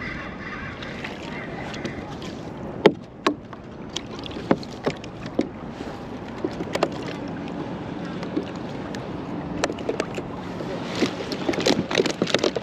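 Irregular sharp clicks and knocks of a fish and tackle being handled on a plastic kayak, over a steady wash of wind and water. The clatter gets busier near the end as the catch is handled at the fish net beside the hull.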